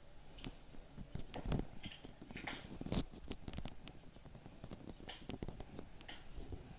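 Fire in a fireplace crackling, with irregular sharp pops and snaps; the loudest pops come about a second and a half in and again about three seconds in.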